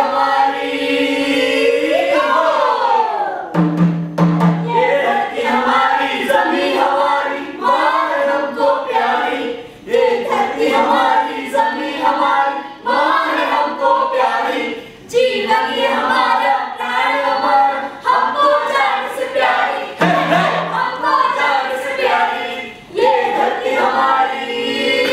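A group of voices singing together in phrases, with short breaks between lines.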